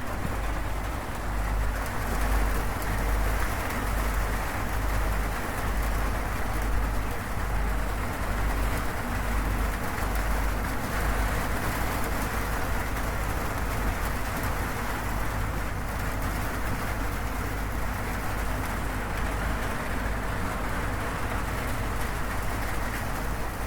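Steady rain drumming on a corrugated zinc roof, with a low rumble underneath.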